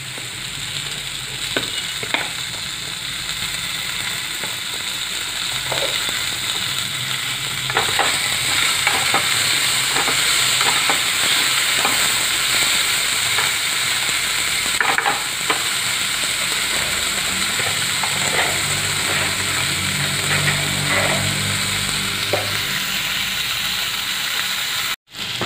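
Diced potatoes and frozen peas frying in mustard oil in a metal kadai, a steady sizzle. A wooden spatula scrapes and knocks against the pan at irregular intervals as the filling is stirred, and the sound cuts out for a moment near the end.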